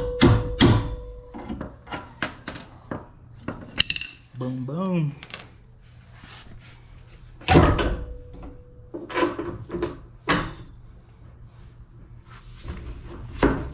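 Hammer striking metal parts of a boat trailer's leaf-spring suspension while new bolts and bushings are driven in: a quick run of ringing blows at the start, then scattered knocks and clinks, with another heavy ringing blow about seven and a half seconds in.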